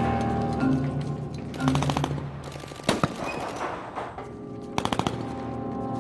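Bursts of automatic gunfire over a steady music score: a short rapid burst about two seconds in, a single loud shot about three seconds in, and another rapid burst about five seconds in.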